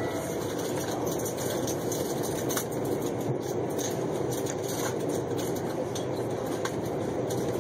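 Passenger train running at speed, heard from inside the carriage: a steady rumble of wheels on rail with a few sharp clicks scattered through it.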